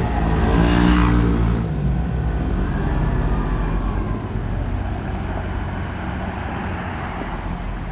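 A motor vehicle's engine swells briefly in the first couple of seconds, then a steady low road and traffic rumble.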